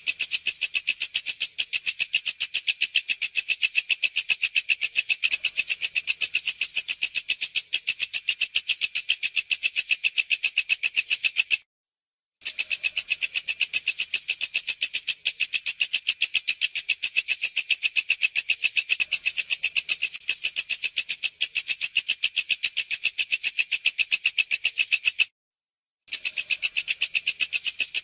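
Walang kecek, a bush cricket (katydid), singing: a rapid, even, high-pitched train of pulses that stops briefly twice, about twelve seconds in and near the end.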